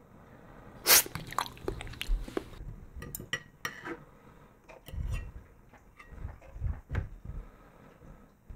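Stainless steel fork and knife clinking and scraping against a ceramic dinner plate while cutting soft modelling clay. There is a sharp clink about a second in, then a run of lighter clicks, with a few duller knocks later.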